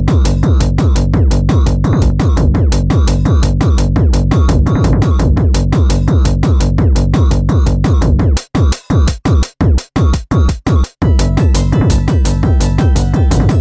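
Fast tekno track programmed in the G-Stomper groovebox app: a steady, fast kick drum under bass and synth lines. Past the middle, the whole mix cuts in and out in a string of short stuttering gaps before the full beat comes back with a busier high pattern on top.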